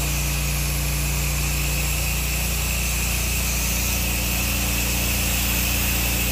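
Soft-wash spray rig running steadily: an engine-like drone under the hiss of the sodium hypochlorite solution spraying from the wand onto vinyl siding.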